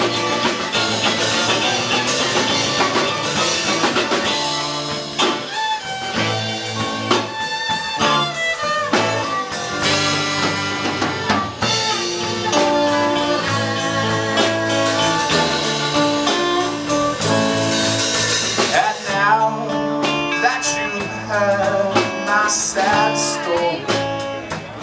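Live band playing a blues-style number: drum kit, electric guitar and saxophone.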